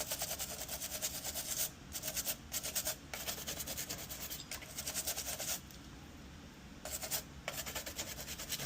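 Rapid back-and-forth scrubbing strokes on a circuit board, cleaning the pads where a part was removed, pausing briefly a few times and going quiet for about a second near six seconds in.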